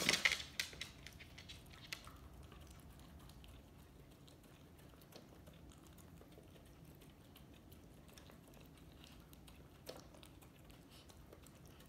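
A dog eating dry kibble from an automatic feeder's plastic tray: faint, irregular clicking and crunching. A short clatter comes right at the start.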